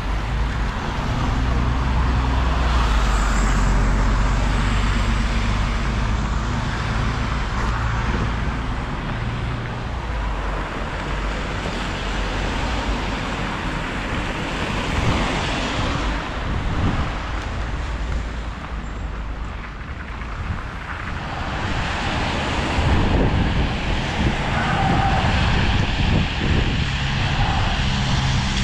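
City road traffic on a wet street: cars passing one after another, their tyres hissing on the wet asphalt. A low steady engine hum runs under it for about the first ten seconds and returns near the end.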